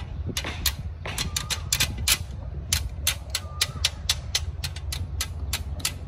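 Steel tie wire being twisted around rebar with pliers: quick, irregular metallic clicks and clinks of wire and tool against the bars, over a steady low rumble.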